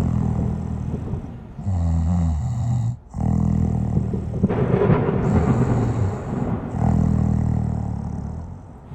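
A sleeping person snoring, a run of low snores one every second or two.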